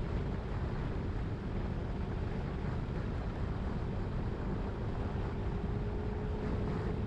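Wind buffeting the microphone of a camera on a moving 2022 Yamaha Zuma 125 scooter, a steady deep rumble that is the loudest sound. Under it runs the scooter's single-cylinder engine as a faint, steady hum that rises a little near the end.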